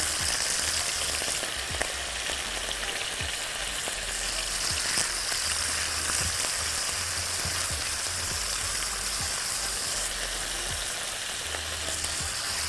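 Beef cubes sizzling in hot oil and butter in a wok as more pieces are laid in one by one with tongs: a steady frying hiss with occasional light clicks.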